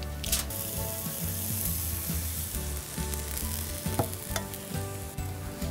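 Sizzling and crackling over a charcoal grill, a steady hiss with scattered sharp pops.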